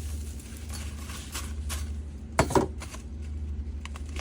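Dried herb-and-flower mix being scooped and filled into a bag: light rustling and scattered small knocks, with one louder short clatter about two and a half seconds in, over a steady low hum.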